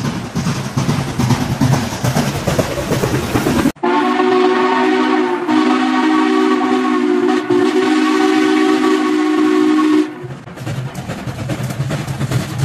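Steam locomotive working hard, a loud rumbling exhaust. After a cut comes one long steady steam whistle blast of several notes at once, about six seconds long, then the locomotive's exhaust rumble returns.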